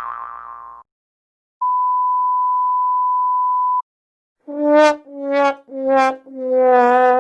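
A cartoon boing dies away, then a steady censor bleep sounds for about two seconds. It is followed by a sad trombone: four falling notes, the last one long and wobbling, the usual sound-effect joke for a failure.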